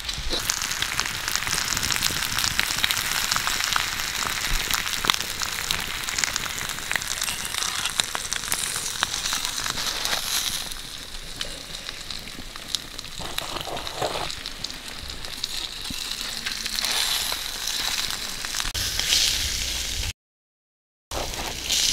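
Pig intestines sizzling on a hot stone slab over a wood fire, a steady hiss with many sharp crackles.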